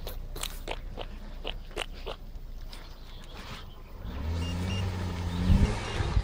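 Hyundai Santa Fe SUV crawling up a muddy forest track under engine power: its engine hum comes in about four seconds in and grows louder as the car nears. Before that, a run of sharp crackles and clicks.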